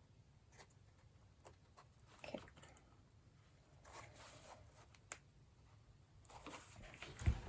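Faint handling sounds of papercrafting: light clicks and short rustles of paper and board being moved and worked by hand, with a few low thumps near the end.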